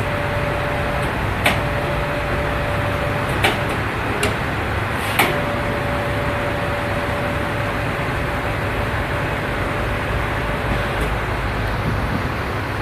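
Amada CRA-300 band saw running under test: a steady mechanical hum and rumble with a steady whining tone that drops out briefly twice and stops near the end. Four sharp metallic clicks or knocks come between about a second and a half and five seconds in.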